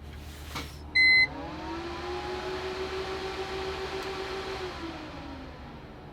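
A short electronic beep, then a small electric motor whining up, running steadily for about three seconds and winding down again.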